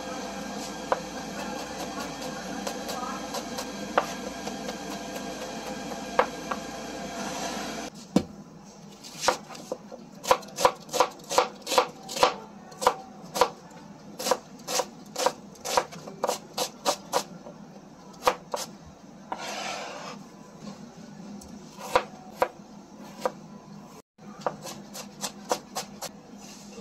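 Chef's knife chopping onion and ginger on a plastic cutting board: a run of sharp knocks, about two a second at its busiest, then sparser. For roughly the first eight seconds there is only a steady hiss with a faint hum, before the chopping starts.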